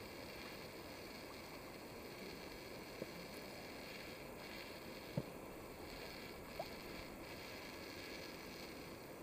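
Faint, steady rushing of the underground river through the cave, with three brief knocks about three, five and six and a half seconds in, the middle one loudest.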